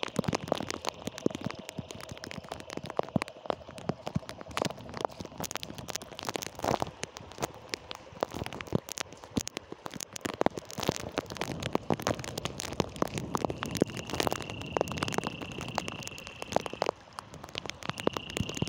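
Steady rain falling, with many sharp ticks of drops hitting close by. A steady high-pitched tone comes in near the end.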